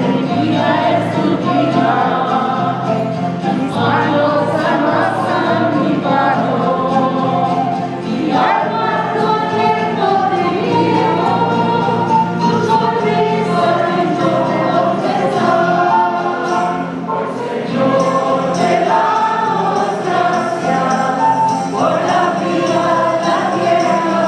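Church choir singing a hymn, sustained and continuous: the closing hymn after the final blessing of a Mass.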